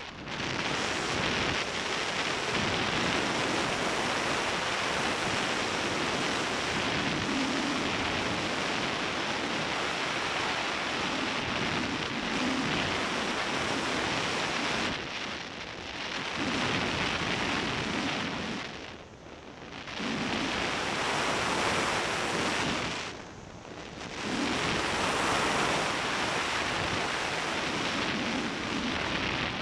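Airflow rushing over the microphone of a camera mounted on a hang glider in flight: a loud, steady wind roar that dips briefly three times in the second half.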